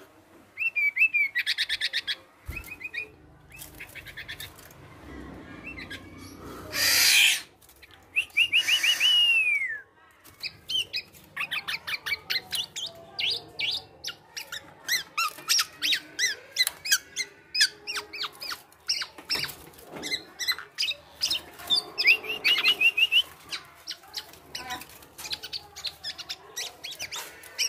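Black-naped oriole calling: a varied run of chirps, short whistles and rapid chattering notes, with a whistle that slurs downward about nine seconds in. A brief noisy burst comes about seven seconds in.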